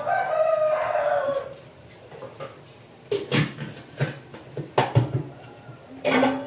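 A drawn-out animal cry, sliding down in pitch over about a second and a half. Then sharp clattering knocks of kitchenware being handled on a tiled counter, the loudest pair just before the fifth second and a longer clatter near the end.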